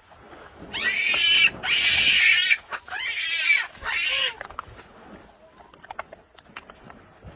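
A monkey screaming: about four high, wavering shrieks in quick succession, starting just under a second in and stopping a little past the middle.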